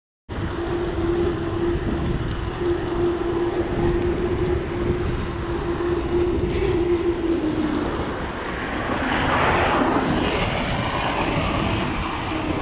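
Riding noise of a mountain bike picked up by a handlebar-mounted action camera: a steady rush of wind and rolling tyres with a steady hum that dips slightly in pitch about seven seconds in, and a louder rush around nine to ten seconds. The sound cuts in abruptly just after the start.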